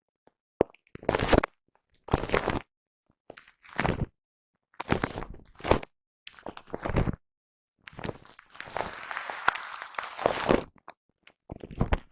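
Foam microphone windscreen being brushed up close, in a series of short separate strokes with one longer stroke of about three seconds past the middle, and silence between the strokes.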